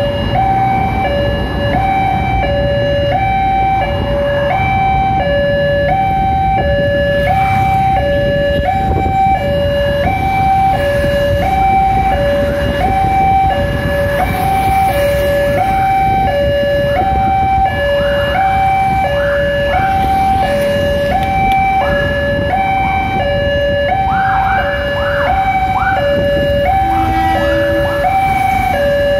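Railway level-crossing warning alarm sounding a steady two-tone high-low electronic chime, repeating about once a second, which signals that a train is approaching. Road traffic runs underneath it.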